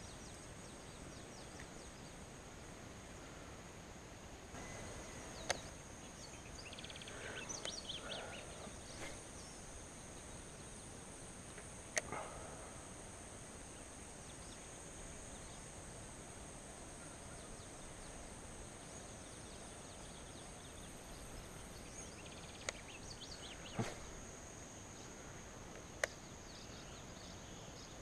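Outdoor ambience: a steady high-pitched insect drone, a few faint bird chirps, and several sharp clicks.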